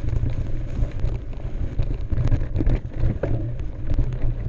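Wind buffeting the microphone as a mountain bike rolls down a dirt trail, with scattered clicks and rattles from the tyres and bike over the ground.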